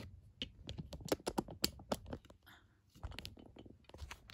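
A run of light clicks and taps, irregular, from the camera phone being handled and set in place.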